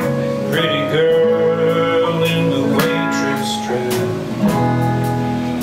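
Live band playing a folk-rock song: strummed acoustic guitar over piano, bass and drums, with a cymbal struck steadily about twice a second.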